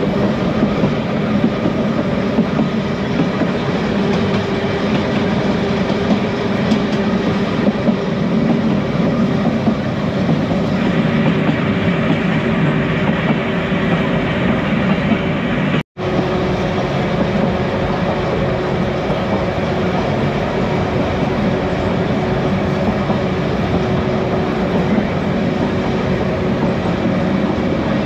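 Manx Electric Railway tram running along the track, heard from on board: a steady rumble of wheels on rail with a faint steady hum. The sound cuts out for an instant a little past halfway.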